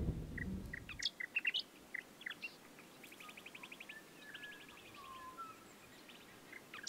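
Small birds calling: scattered short chirps, two rapid trills in the middle, and a few soft whistles. Strummed acoustic guitar music fades out in the first second.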